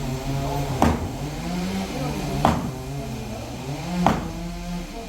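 Three sharp knocks, evenly spaced about a second and a half apart and each ringing briefly, over a machine engine running steadily with its pitch drifting up and down.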